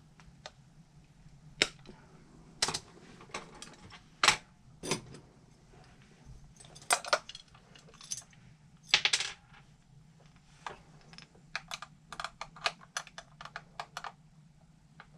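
Small hard parts of a scale RC car lift kit clicking and tapping as they are handled and fitted together by hand, in irregular knocks, with a quick run of light clicks late on.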